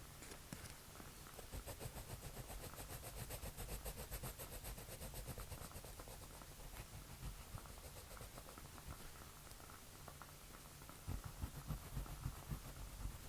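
A drawing tool scratching on paper in quick back-and-forth shading strokes, at several strokes a second, strongest for a few seconds and then lighter. A few soft low thumps near the end.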